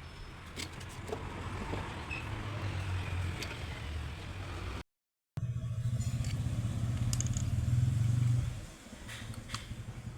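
Maruti Suzuki Gypsy engine running, with a few light clicks over it. It breaks off briefly about halfway, comes back louder, then drops back down near the end. The engine is missing (misfiring), which the title puts down to a faulty ignition coil.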